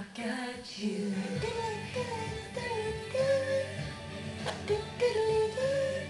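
Music playing: a song with a singing voice carrying a melody of held notes over a steady bass line, with one sharp click about four and a half seconds in.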